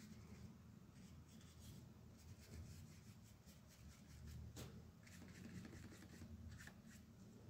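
Near silence: faint, scattered scratches of a paintbrush stroking paint onto paper, over a low room hum.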